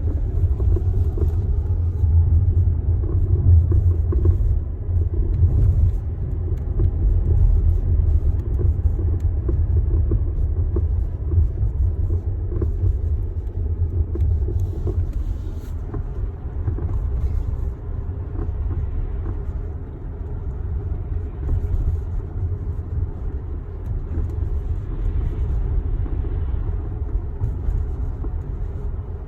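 Tesla Model X on the move, a steady low rumble throughout, recorded to capture a knocking noise from the car.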